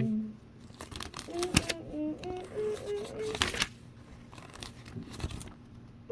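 Small plastic Lego pieces and a sticker sheet being handled: light clicks and crinkling rustles. A voice hums softly through the middle.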